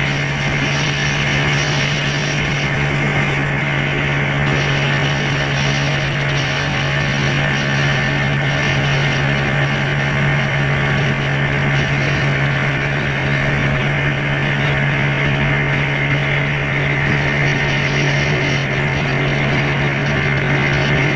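A vehicle engine running at a steady speed: a constant low hum over an even rushing noise, with no change in pitch.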